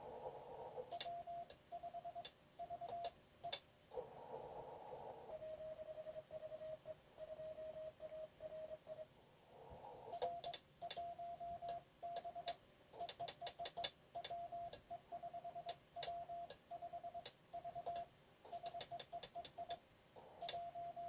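Morse code from an amateur radio transceiver: a steady beep keyed into dits and dahs, in several runs broken by short bursts of receiver hiss, with one run a little lower in pitch than the others. Sharp clicks come along with much of the sending.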